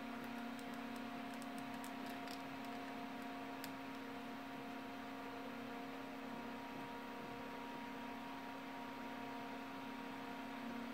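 140 mm PC cooling fan running steadily: an even hum with one low tone and fainter higher tones above it.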